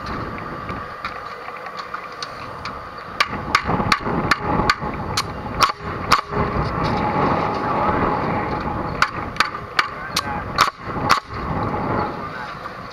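Pneumatic framing nailer firing into a timber ceiling joist: about a dozen sharp nail shots in quick, irregular runs, starting about three seconds in with a pause midway, over a steady mechanical hum.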